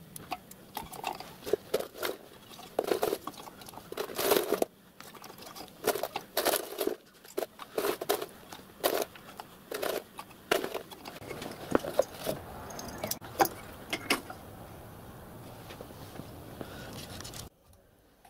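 Hands handling metal parts and a thin metal plate on a miniature live steam locomotive: a run of irregular clinks, knocks and rustles. About three quarters of the way in this gives way to a steadier low rustle, and the sound drops off sharply near the end.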